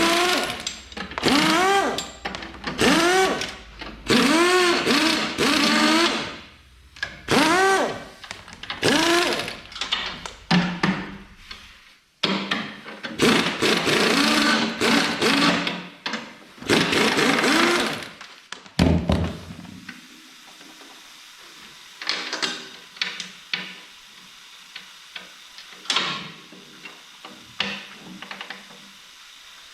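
A handheld power tool run in short bursts about once a second, its pitch rising and falling with each burst, consistent with unscrewing panel fasteners. After about nineteen seconds it stops, leaving a few light knocks and clinks.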